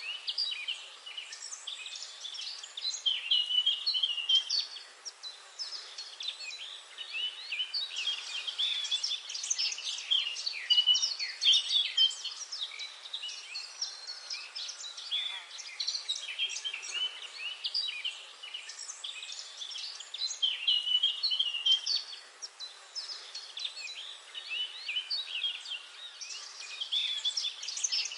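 Several birds singing and chirping at once, a dense chorus of overlapping trills and chirps throughout, over faint background noise.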